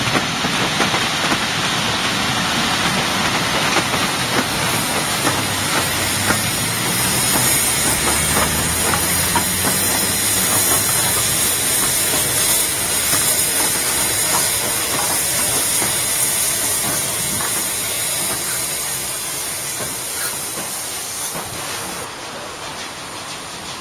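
Steam locomotive No. 63601, an ex-Great Central O4 class 2-8-0, passing at close range with its steam hissing steadily and the train rumbling on the rails; the sound fades gradually in the last several seconds as it draws away.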